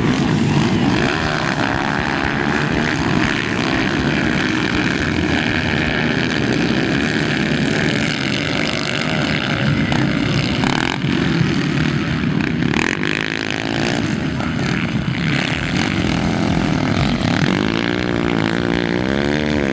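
Motocross bikes racing, several engines running hard at once. Near the end, one bike's engine revs up and down.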